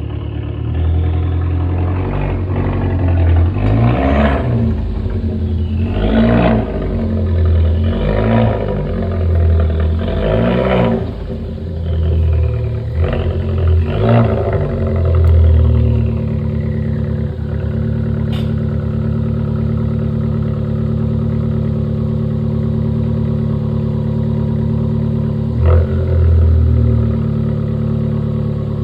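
Alfa Romeo MiTo Quadrifoglio Verde's 1.4 turbo four-cylinder engine revved about six times in quick succession, then settling to a steady idle with one short blip of the throttle near the end.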